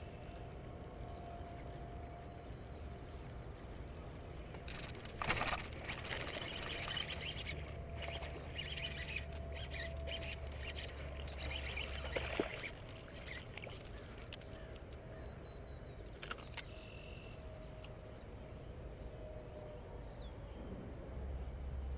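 Baitcasting fishing reel working a topwater toad lure: a sharp click about five seconds in, then about seven seconds of rough, clicking cranking that stops abruptly near twelve seconds.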